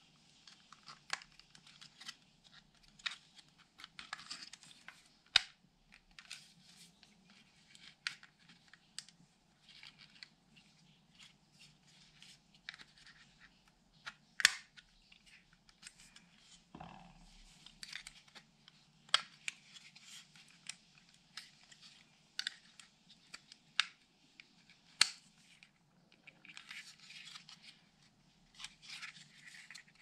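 Hands working over a car's plastic window-switch panel: scratching and rubbing, broken by many scattered sharp clicks of plastic parts. A faint steady low hum runs underneath.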